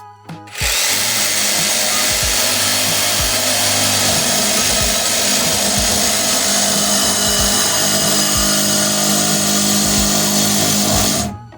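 A power tool running steadily for about ten seconds, starting just under a second in and stopping sharply near the end.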